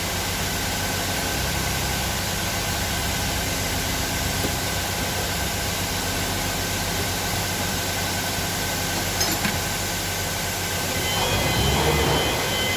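Deutz TCD 2011 L04 four-cylinder diesel engine idling steadily while misfiring, with cylinders 2 and 3 dead. It grows a little louder near the end.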